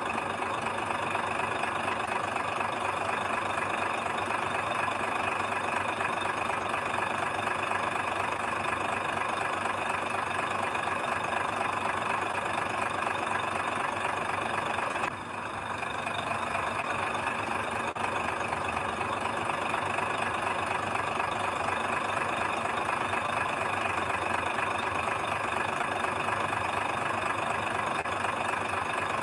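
Heavy earthmoving machine's diesel engine running steadily at a low, even pace, with a brief drop in level about halfway through.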